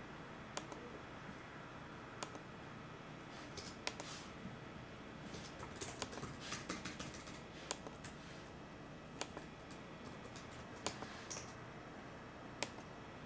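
Fingers working a Canon EOS Kiss X6i's controls: single crisp clicks about every one and a half seconds as menu settings are stepped through, with a quicker run of clicks and light handling rustle around the middle.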